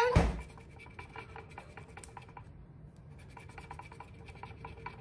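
A coin scratching the coating off a scratch-off lottery ticket: quick, short scraping strokes with a brief pause about halfway through. There is a soft thump right at the start.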